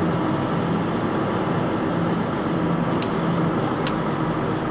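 Diesel engine of a 32-tonne concrete mixer truck running steadily at low speed as it creeps forward, with two brief clicks about three and four seconds in.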